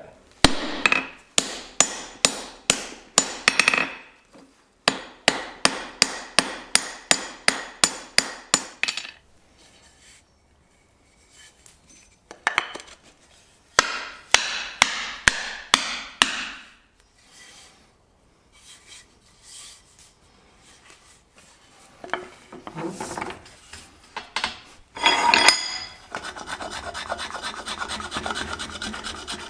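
A run of hammer blows on hot steel at an anvil, about three strikes a second, stopping after some nine seconds. Later comes scattered knocking, and near the end a steady rasping of a file across a wooden hickory tool handle.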